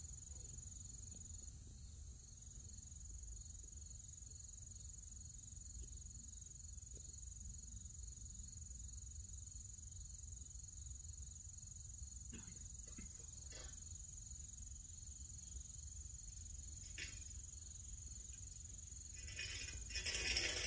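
Field insects trilling steadily in one continuous high tone, over a low rumble, with a few faint knocks. Near the end a louder rattling noise comes in.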